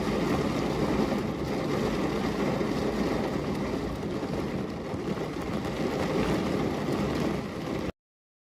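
Steady, deep rushing noise of a recorded nature soundscape, with no distinct drops or tones, that cuts off suddenly into dead silence near the end.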